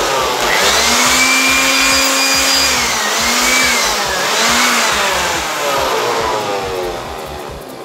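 Handheld electric air blower running, blowing dust out of a computer's insides: a loud rush of air with a motor whine whose pitch dips and recovers a few times midway, easing off near the end.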